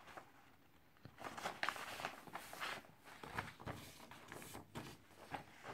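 Soft irregular rustling and light taps of paper and bedding being moved about, starting about a second in.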